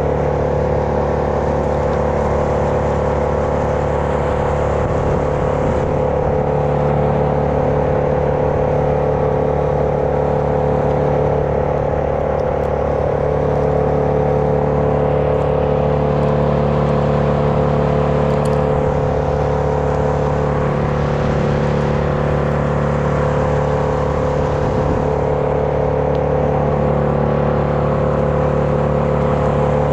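An engine running steadily at one constant speed, with no revving.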